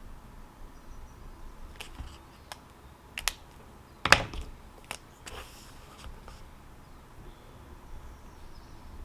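Scattered clicks and taps from small objects being handled at a desk, with the sharpest knock about four seconds in, over a faint steady background.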